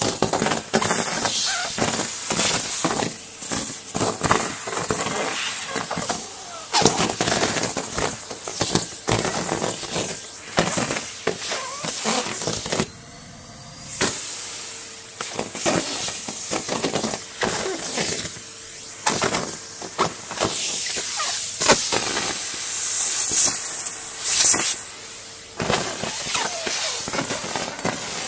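Henry 160 cylinder vacuum cleaner running and sucking up dry leaves: a steady high airflow hiss with constant crackling and rattling as leaves are pulled through the hose and wand, easing off briefly about halfway through.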